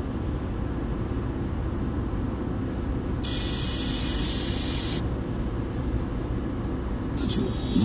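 Steady low road and engine rumble inside a car cabin at motorway speed. A sharp-edged hiss cuts in about three seconds in and stops about two seconds later, then returns near the end.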